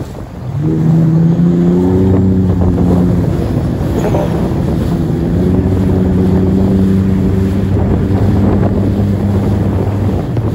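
Jet ski engine running at a steady throttle. It comes in about half a second in, holds an even pitch with a small step midway, and cuts off abruptly at the end.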